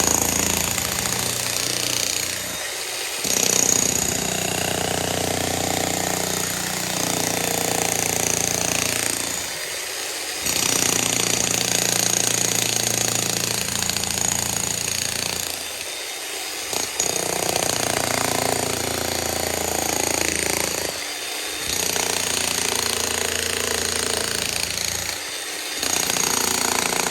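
Electric hammer drill chiselling concrete in a steady rapid hammering. It breaks off briefly about five times, every five or six seconds.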